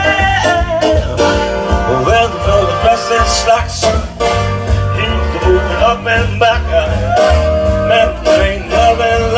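Live dance music with a man singing into a microphone over a steady bass beat.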